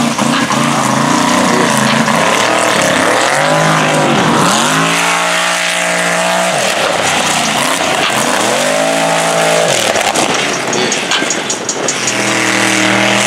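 Mega truck engine revving hard under load, its pitch climbing, holding high and dropping off again three times, over a loud steady roar.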